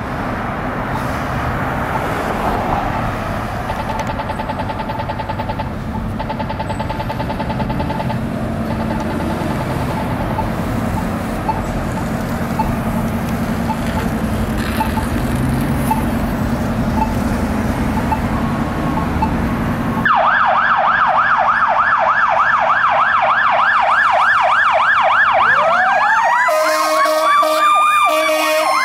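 Street traffic running steadily; about two-thirds of the way through, a KME fire engine's siren starts up suddenly in a fast yelp. Near the end it changes to a slower rising and falling wail, with horn blasts.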